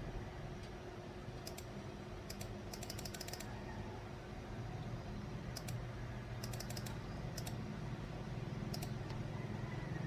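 Keys tapped on a computer keyboard in short scattered runs of clicks, some single and some in quick flurries, over a steady low hum.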